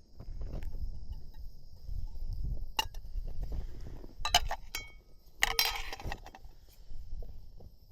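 Camp cookware clinking as it is handled: a single sharp clink about three seconds in, then a quick run of ringing metallic clinks about four seconds in, followed by a short rushing burst. Low dull knocks of handling run under it.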